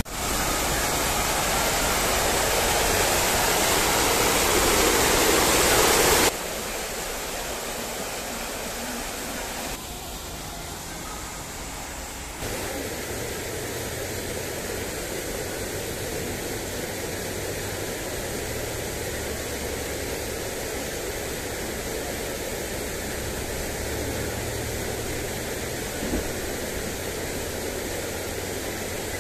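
Fountain jets splashing: a steady rush of falling water, louder for the first six seconds, then dropping suddenly and going on more quietly with a faint low rumble under it.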